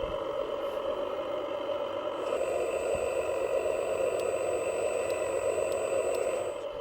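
Small electric motor and gears of an RC model truck running with a steady whine. It gets a little louder about two seconds in.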